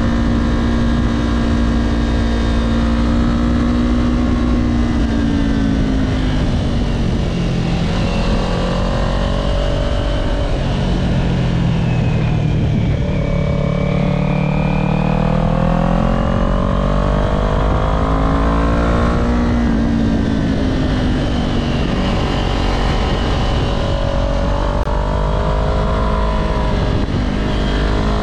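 Kawasaki Z400 parallel-twin engine running under way on the road, its pitch falling and rising several times with throttle and gear changes, over a steady low rumble of wind on the helmet-mounted microphone.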